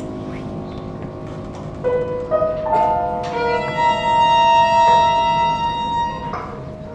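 Live chamber quartet of violin, cello, clarinet and piano playing a contemporary piece: soft held tones, then from about two seconds in, notes enter one after another, stepping upward into long high held notes, the violin to the fore, fading near the end.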